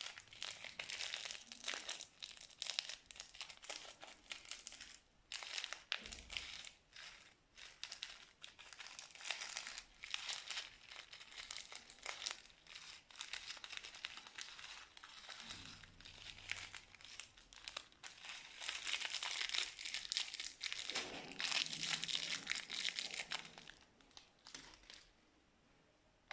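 Plastic piping bags crinkling and crackling as slime is squeezed and worked in them, a dense run of fine crackles in waves that stops about a second before the end.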